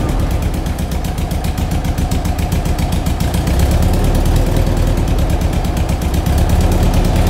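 Air-cooled VW flat-four engine running steadily at about idle through a stainless-steel high-performance sport muffler for the T2 Bay Window Bus.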